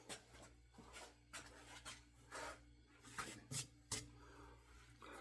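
Faint handling noise: a series of light taps and short scratchy rubs, with one slightly longer rub about two and a half seconds in.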